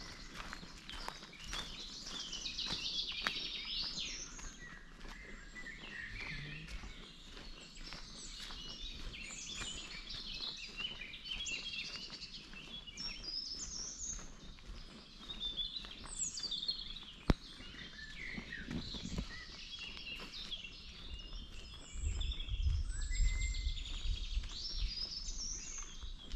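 Several songbirds singing in woodland, with overlapping chirps and warbled phrases throughout. There is a single sharp click about two-thirds of the way through, and a low rumble in the last few seconds.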